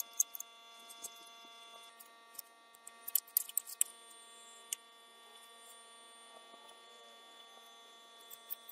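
Plastic spreader scraping and tapping as body filler is worked onto a rusted metal panel: scattered light clicks, bunched a little after three seconds in, over a steady faint hum.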